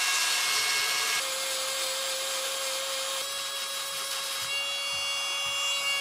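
High-speed rotary tool with an abrasive grinding stone grinding down a metal part of an Underwood No. 3 typewriter's platen assembly, throwing sparks: a steady high whine with a gritty hiss, its pitch shifting a few times, cutting off abruptly at the end.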